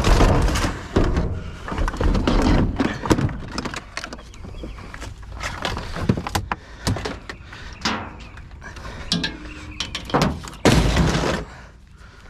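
Clattering, knocking and thudding of junk and scrap being rummaged through and moved about. There are two longer, louder crashes: one at the start and one near the end.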